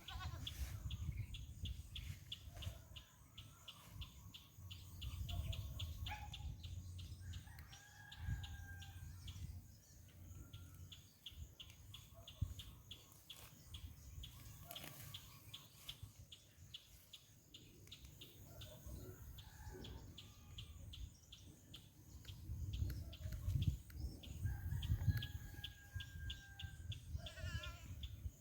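Rooster crowing twice, about eight seconds in and again near the end, over a fast, even insect chirring and a low rumble.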